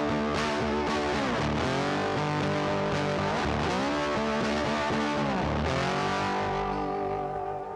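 Background music: electric guitar with distortion and effects playing bending notes, fading down near the end.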